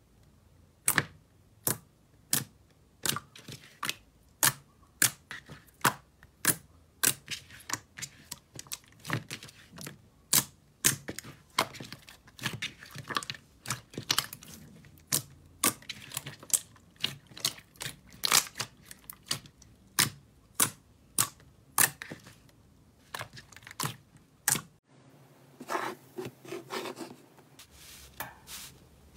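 Pink slime pressed and folded by hand, making sharp popping clicks about two a second. Near the end the clicks stop and a quieter, softer stretch follows.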